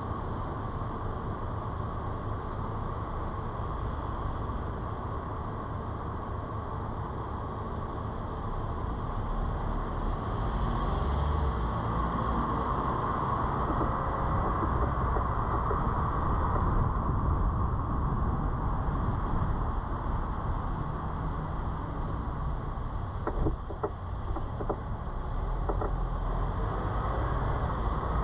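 Car driving noise: low engine and tyre rumble while stopped in traffic, growing louder as the car pulls away and drives on, with a few short knocks about two-thirds of the way through.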